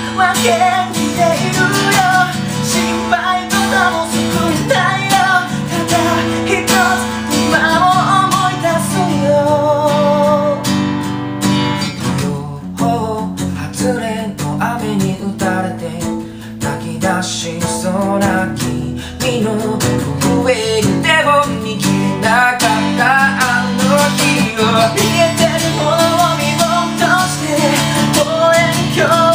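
A man singing a Japanese pop-rock song over his own strummed acoustic guitar.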